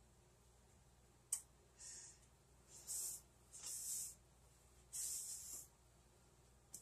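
A cloth rubbed across a stovetop in four short, hissy wiping strokes, with a sharp click about a second in and a lighter one near the end.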